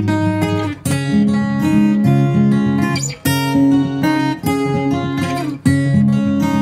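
Background music: strummed acoustic guitar chords, struck roughly once a second and left to ring.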